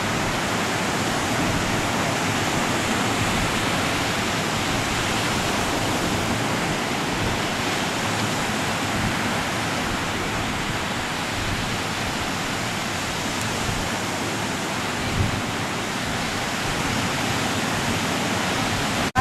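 Steady rushing noise of surf breaking on a sandy beach, with one brief thump about fifteen seconds in.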